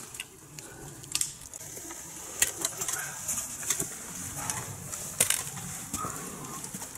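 Footsteps crunching on an icy forest path: irregular sharp crunches over a steady faint hiss.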